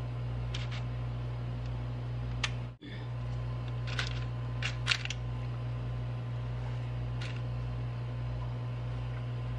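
Light clicks and taps of dry Chex cereal pieces being set onto chocolate-topped cookies on a wire cooling rack, over a steady low hum. The sound cuts out for a moment about three seconds in.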